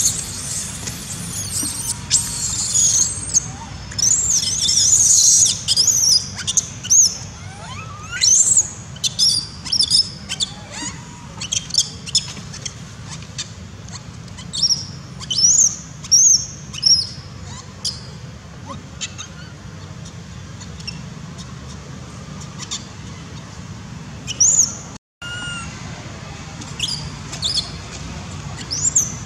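Young long-tailed macaque squealing: many short, high-pitched rising-and-falling cries in quick runs, thickest over the first several seconds and again near the end, over a steady low hum.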